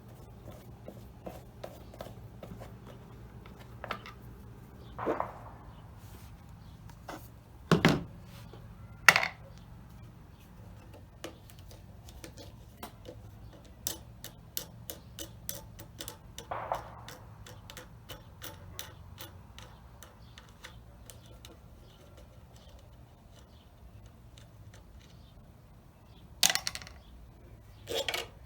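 Scattered clicks, knocks and rubbing of hand work as the air filter cover is opened and the air filter pulled from a pressure washer's small engine. There are a few louder knocks, and a quick run of ticks midway.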